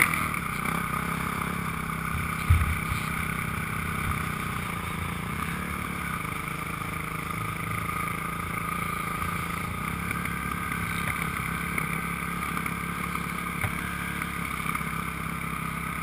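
Off-road vehicle engine running steadily at low speed, heard through a helmet-mounted camera, with one short thump about two and a half seconds in.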